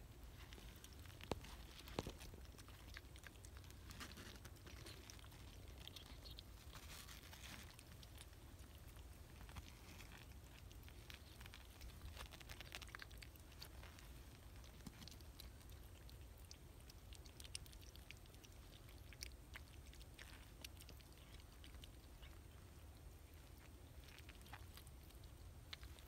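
Near silence, with faint scattered small clicks and smacks from newborn kittens nursing and shuffling on a blanket.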